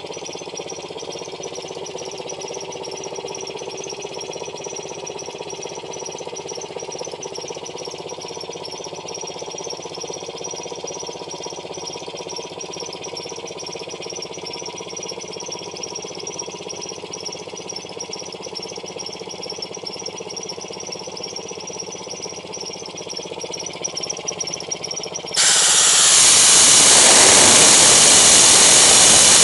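Vintage belt-driven air compressor running steadily: a cast iron K-series pump driven by a 3/4 HP General Electric electric motor. About 25 seconds in, a loud hiss of compressed air starts suddenly as air is blown out through a brass nozzle.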